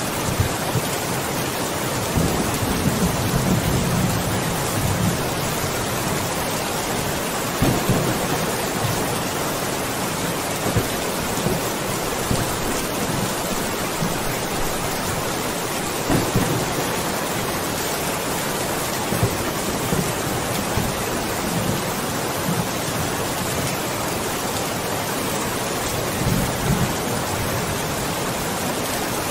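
Steady, heavy rain falling, an even hiss throughout, with a low rumble swelling up several times.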